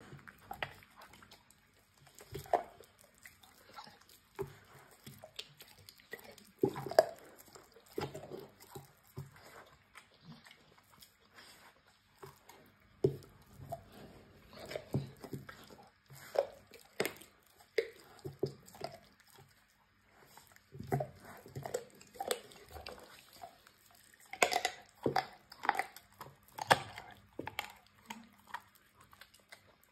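Bull terrier chewing and gnawing a raw pork leg: irregular bites and crunches in bursts, with a couple of short pauses.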